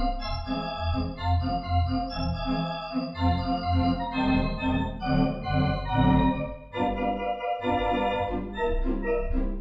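Brisk organ music, a pulsing bass line under chords and a running melody.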